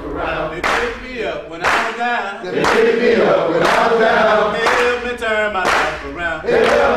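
A group of men's voices chanting together in loud, repeated phrases.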